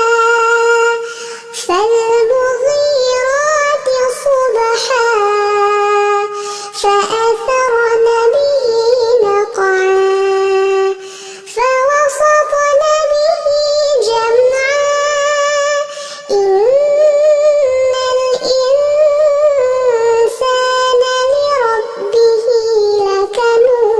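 A high-pitched voice chanting Quran recitation in long melodic phrases, with held, wavering notes and short breaks between phrases.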